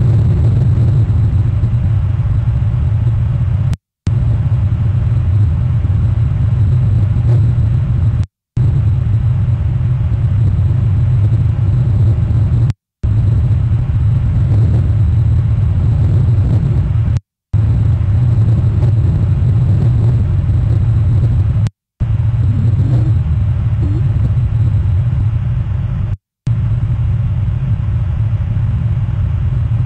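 Steady low rumble of a cruise ship's engines under way. It is broken by brief dropouts to silence about every four and a half seconds.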